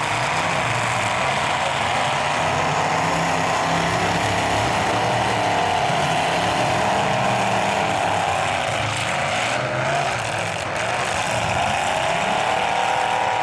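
Demolition derby truck engines running hard at high revs, their pitch wavering and rising as the drivers floor them while pushing against each other.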